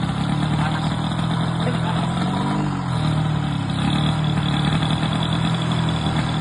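Motorcycle engine idling steadily, its speed dipping briefly and recovering about halfway through.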